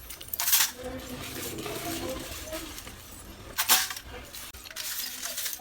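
Hard, crunchy pieces of roasted Multani mitti (fuller's earth clay) cracking, with two sharp crisp cracks, one about half a second in and one near four seconds in, and a softer crackle near the end.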